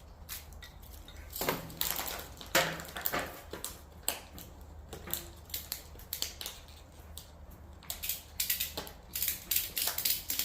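Ratchet strap being handled and worked: scattered clicks, clunks and rustling, with a quicker run of ratcheting clicks in the last couple of seconds.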